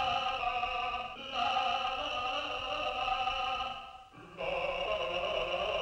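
Cartoon whale singing opera: a solo operatic voice holding long notes, in three phrases with short breaks about a second in and about four seconds in.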